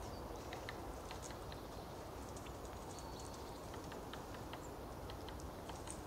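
Quiet outdoor ambience in a frosty field: a steady low hiss with scattered faint high ticks and clicks, and one brief thin whistle about three seconds in.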